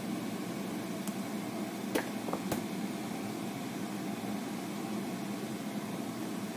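Chopped mushrooms sizzling in a nonstick frying pan over a gas burner, a steady hiss, with a few sharp clicks around two seconds in.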